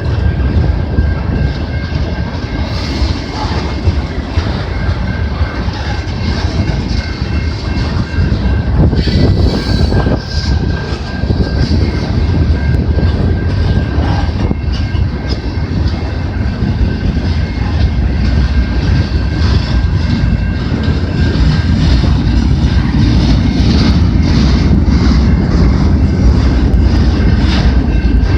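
Freight cars of a CN freight train rolling past close by, wheels clicking over the rail joints in a loud, steady rumble. Thin, steady high-pitched tones run through the noise.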